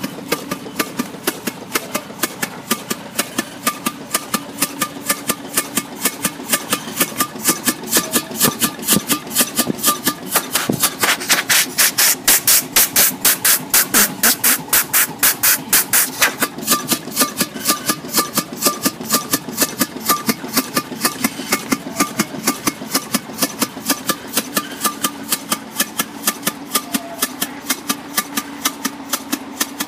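1920s American Blower Co. vertical 7x7 double-acting steam engine running under power with a steady rhythmic beat of about three strokes a second, louder in the middle.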